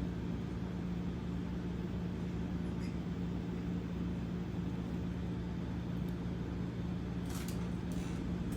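Steady low electrical or motor hum from the room, with a couple of faint light clicks near the end.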